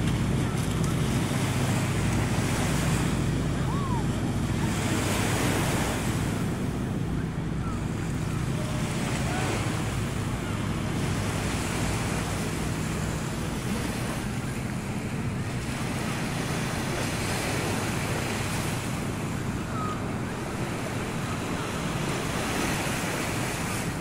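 Small sea waves breaking and washing up a sandy shore, the surf swelling and fading every few seconds, with wind rumbling on the microphone.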